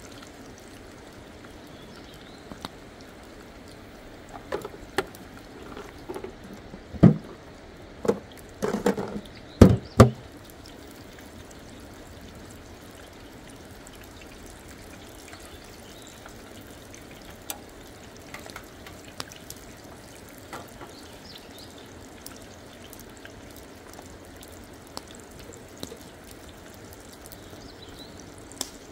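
Steady rush of flowing river water, with a burst of knocks and clatters a few seconds in and a few faint ticks later.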